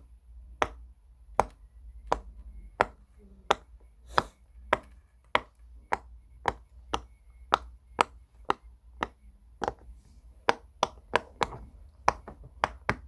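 Bubbles of a pop-it silicone fidget toy being pressed one after another, each giving a sharp pop, about one and a half a second, coming quicker near the end.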